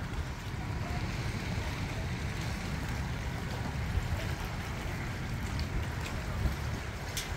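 Wind buffeting the microphone in a low, gusting rumble, with choppy lake water lapping against the rocky shore.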